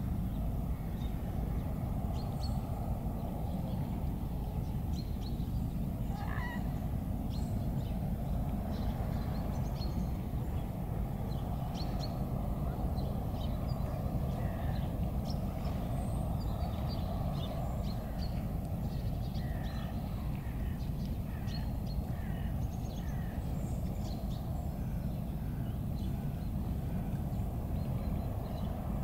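Birds calling in short, scattered calls over a steady low rumble, with one longer call about six seconds in.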